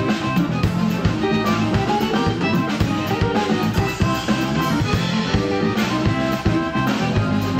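Live band playing an instrumental passage: accordion, archtop electric guitar, electric bass and drum kit, with a steady drum beat.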